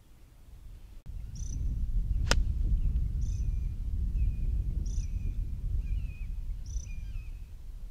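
A golf club strikes the ball once with a sharp click, about two seconds in. A bird calls again and again, about once a second, each call a high note followed by a lower one, over a low steady rumble.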